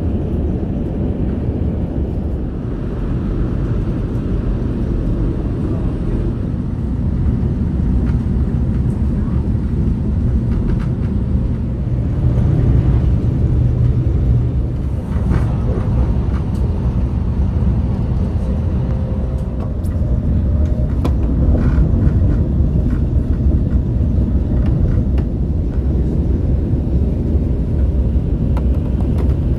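Steady low rumble and running noise inside the passenger cabin of a KTX-Cheongryong high-speed train under way, with a few light clicks near the middle.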